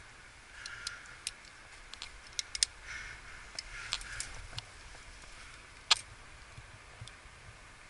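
Climbing gear being handled: rope rustling and scattered sharp metal clicks from a Grigri belay device and carabiner. The loudest click comes about six seconds in, as the rope is loaded into the Grigri.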